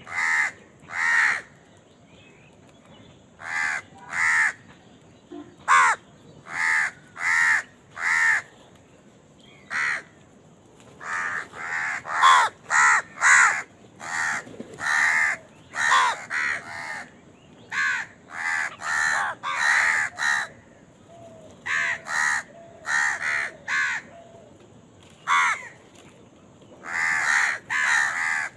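Crows cawing over and over: short, harsh caws mostly in twos and threes with short pauses between, coming thicker and partly overlapping from about eleven seconds in.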